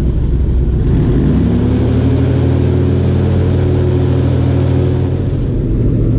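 Big-block airboat engine running. It revs up about a second in, holds a steady pitch, then eases off near the end.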